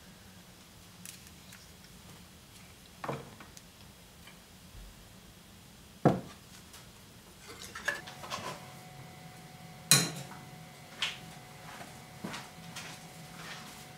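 Scattered clinks and knocks of glass jars and dishes being picked up and set down on a wooden shelf, spaced a second or more apart, the sharpest about six and ten seconds in.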